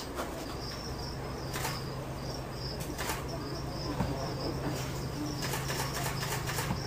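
Insects chirping in short, high notes repeated every half second or so over a steady low hum, with a few brief rustles.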